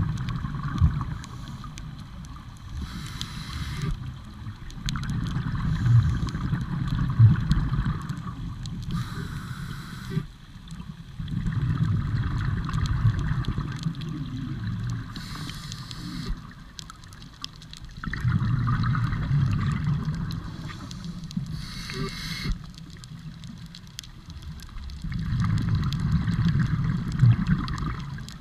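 Scuba diver breathing through a regulator underwater: a short hiss on each inhale, then a longer bubbling rumble of exhaled air. About four breaths, one every six or seven seconds.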